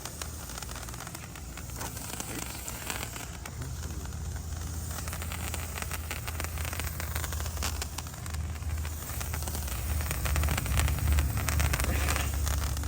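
Handheld or ground firework burning with a steady hiss and dense crackling, over a low rumble that grows louder near the end.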